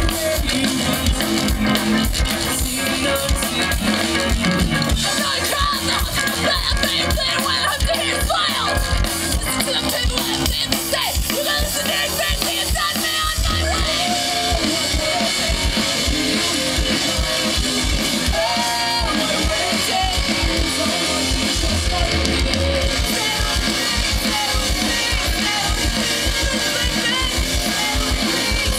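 Live rock band playing loud: electric guitars and a fast, steady drum beat, with singing over the top.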